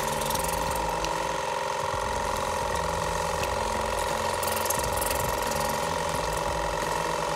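Small electric motor of a powered dental-cleaning device running with a steady buzz while held in the mouth.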